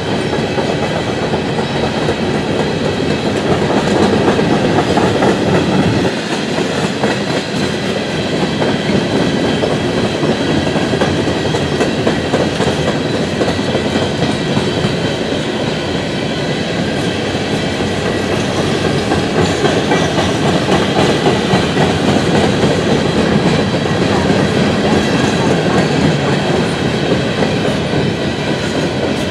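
Empty coal cars of a freight train rolling past at close range: a loud, steady rumble of steel wheels on the rail, with a faint steady high-pitched ring above it.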